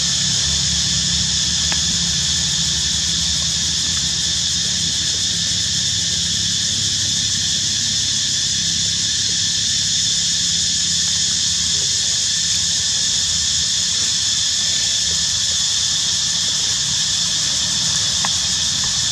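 Steady high-pitched drone of an insect chorus, unchanging throughout, with a low rumble underneath.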